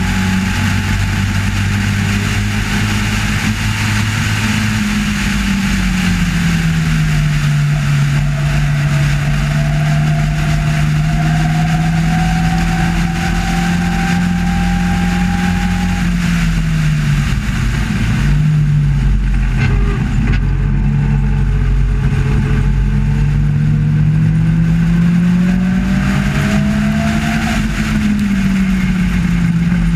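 Sports-racing car's engine at racing speed, heard onboard in the open cockpit with a steady rush of wind. The engine note holds steady, dips sharply about two-thirds of the way through, then climbs again near the end.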